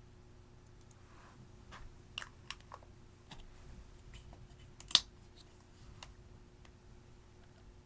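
Clear slime being worked by hand, giving a scattered run of crisp clicks and pops, the loudest about five seconds in.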